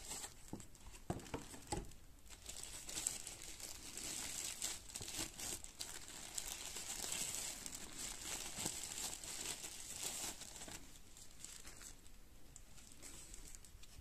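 Thin plastic packaging crinkling and rustling as a power strip in its plastic bag is pulled out of a cardboard box and unwrapped. The crackle is irregular and quick, and busiest in the middle stretch.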